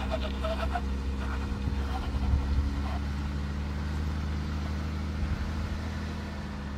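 Jeep engine running with a steady low hum.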